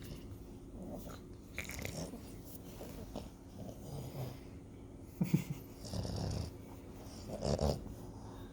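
A dog making a series of short noisy breaths and grunts, the loudest about five seconds in and again near seven and a half seconds.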